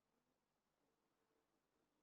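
Near silence: only faint background hiss.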